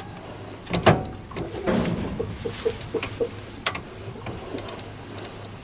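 A 1/4-inch BSP tap being started into brass by turning the lathe chuck by hand: a few sharp clicks and a quick run of small squeaks as the tap cuts, over a low steady hum.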